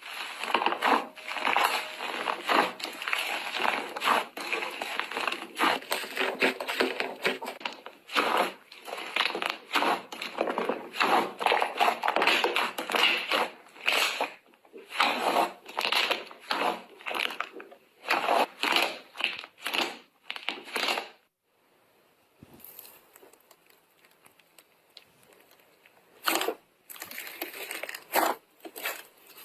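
Slime being squeezed and pressed by hand, giving a dense run of crackling, popping and squelching clicks. It stops about 21 seconds in and is followed by quieter handling, with a few more short bursts near the end.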